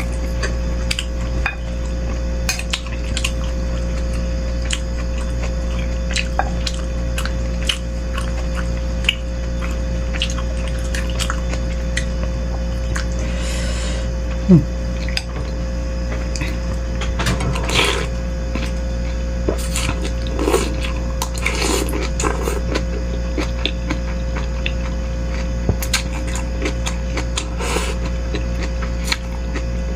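Spoon and fork clinking and scraping against a bowl of bakso meatball soup as it is eaten, in many irregular small clicks over a steady low hum.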